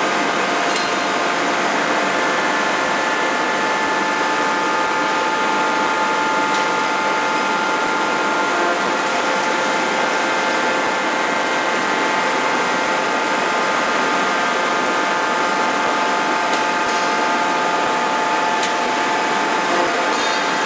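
Forging-line machinery running steadily: a constant mechanical hum and whine, with a few faint clicks.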